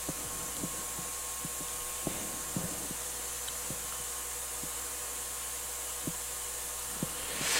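Steady room hiss with a faint hum, and soft, irregular clicks about once a second from a computer mouse being worked as the schematic is zoomed and scrolled.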